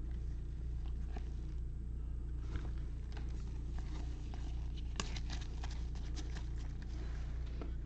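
Baseball trading cards being handled and flipped through by hand: a scatter of light clicks and rustles, thickest about five seconds in, over a steady low hum.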